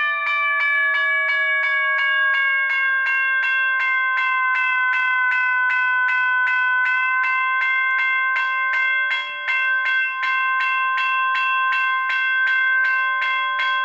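General Signals Type 1 electronic railroad crossing bell ringing with quick, even, repeated dings. Its pitch slides slowly lower over the first several seconds as the tone adjustment on its circuit board is turned, then holds steady at the new setting.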